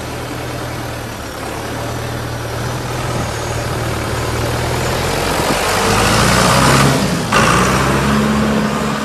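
John Deere 5510 tractor's diesel engine running, getting louder and rising in pitch about six to seven seconds in, with a sudden brief break just after seven seconds before it carries on at the higher pitch.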